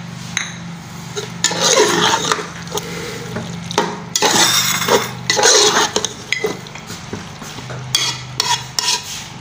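A perforated steel skimmer stirring chicken and vegetables in a steel pot, scraping and clinking against the pot in irregular bursts.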